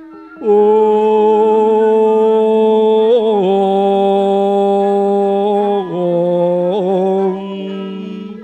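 Javanese sung verse (tembang) in long, drawn-out notes with vibrato over sustained instrumental accompaniment. The voice steps to a new note about three seconds in and again about six seconds in, and softens near the end.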